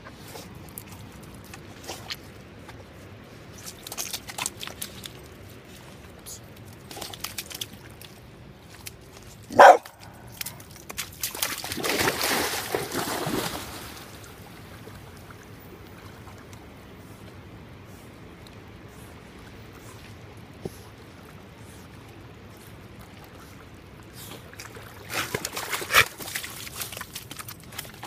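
A dog barks once sharply, then splashes into the water and swims, churning the surface for a few seconds. Near the end come more scuffling noises and a sharp knock.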